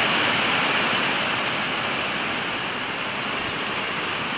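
Rain on a metal shop building: a steady, even hiss that eases off a little partway through.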